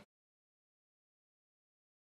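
Silence: the sound track has ended, with no sound at all.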